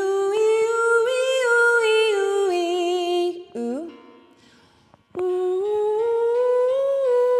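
A woman's voice sings vocal warm-up phrases on a hum-like sound, each phrase stepping up a short scale and back down. Two such phrases come with a brief pause between them.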